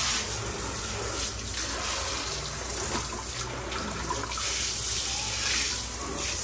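Shower head running: a steady rush of spraying water in a self-service dog bath.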